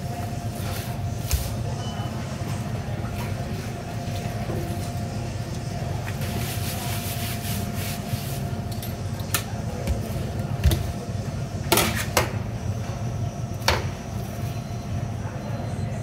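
Steady low hum of background machinery under a faint steady tone. Midway a cloth rubs over a plastic cutting board, then several sharp knocks and clatters come as pieces of halibut are moved and set down on the board.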